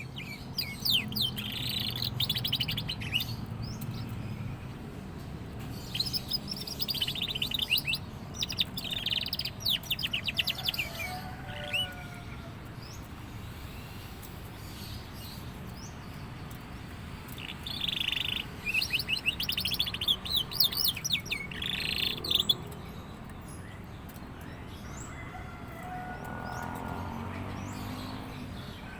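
Young domestic canary singing: phrases of rapid trills in several bursts with pauses between, the bird starting to sing in full voice.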